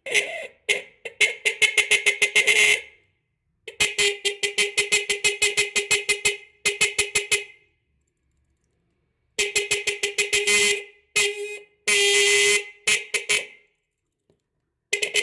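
Electric car horn blaring in a series of blasts, some brief toots and some lasting a few seconds, each with a fast rattling buzz running through it.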